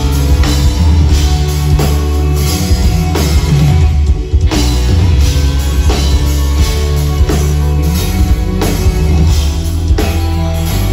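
A live rock band playing with no singing: a drum kit keeps a steady beat over a heavy bass, with electric guitar on top.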